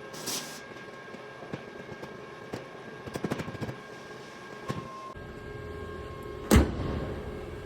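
Workshop noises over a steady hum: scattered clicks and knocks, a short hiss near the start, a quick run of clicks about three seconds in, and one loud knock about six and a half seconds in.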